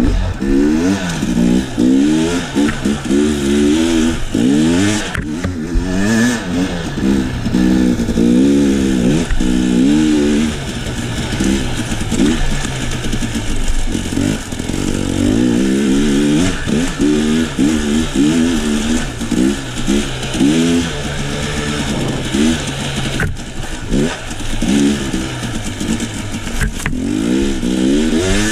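KTM enduro dirt bike engine being ridden, its pitch rising and falling over and over as the throttle is opened and closed.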